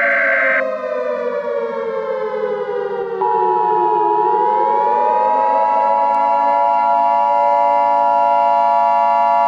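Civil defense siren wailing: its pitch sinks over the first four seconds, then rises again and holds steady. A steady, higher alert tone joins about three seconds in and sounds alongside it.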